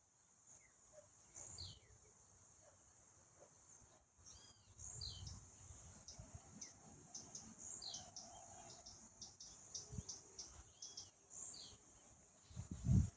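Steady high-pitched insect chorus, like crickets, with a bird giving short descending chirps every few seconds. Low rumbles and thumps come in near the end.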